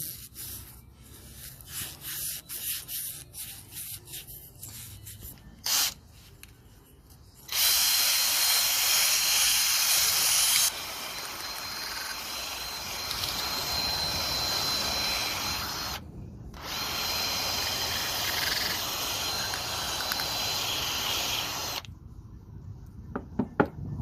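Small clicks and knocks of parts being handled. Then a loud, steady hiss with a faint high whistle runs for about fourteen seconds. It drops in level partway through and breaks off briefly once, and a few sharp clicks come near the end.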